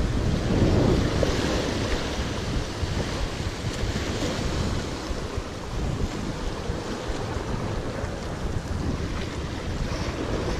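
Sea swell breaking and washing over rocks, with wind buffeting the microphone. The surf is loudest at the start, then eases to a steady wash.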